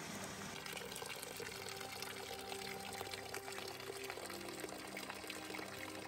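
Running water splashing and pouring, from a small mountain stream over rocks and a thin pipe spout. Soft background music of held notes comes in about half a second in.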